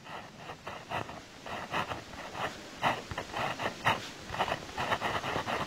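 Livescribe smartpen writing on paper: many short, irregular scratchy strokes as words are handwritten.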